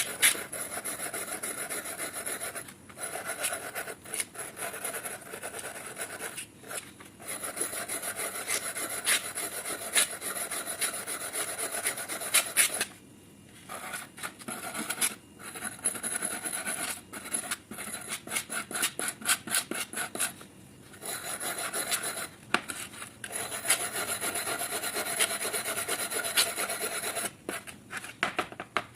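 Rust being scraped and abraded off the steel of an old wrench, a continuous gritty rubbing with several short breaks, the longest a little under halfway through.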